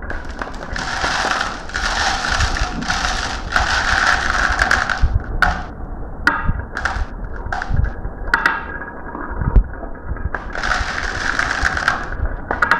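Marbles rolling and clattering down a marble run: long stretches of dense rattling, one near the start and one near the end, with single sharp clicks and knocks in between.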